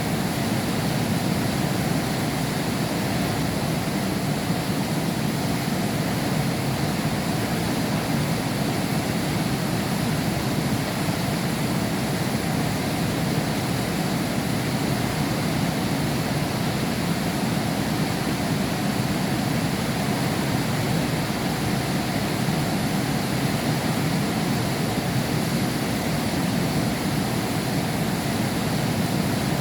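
Heavy rain falling steadily, heard from behind window glass: an even, unbroken rush with most of its weight low down.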